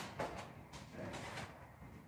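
A few short scraping, rustling sounds of hands working on a new bicycle, pulling its protective packaging off the fork.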